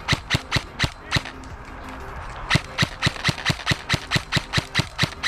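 Airsoft gun firing rapid shots, about five or six a second: a short string of about six, a pause of over a second, then a longer string running on towards the end.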